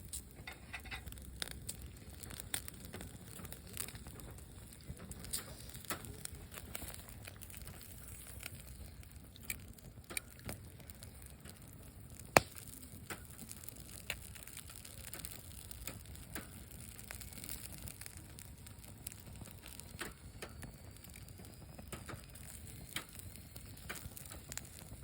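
Charcoal grill crackling with scattered small pops and ticks as chewy jjondeugi snacks toast over the coals, with one sharper snap about halfway through.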